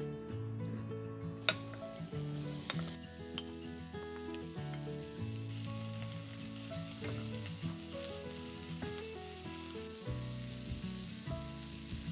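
Diced onion, eggplant and red pepper sizzling in olive oil in a frying pan, stirred with a wooden spatula. The sizzle starts abruptly about a second and a half in, over background music.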